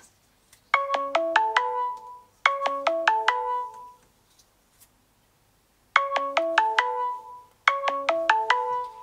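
Samsung smartphone sounding the ThermaQ WiFi app's alarm tone with its screen locked: four quick runs of chime notes, in two pairs with a pause between. The alarm signals that the food probe has reached its high-alarm temperature and the chicken is done.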